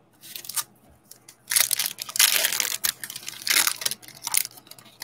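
A foil 2020 Donruss Football trading-card pack being torn open and crumpled by hand: a series of crackling, crinkling wrapper bursts, loudest in the middle.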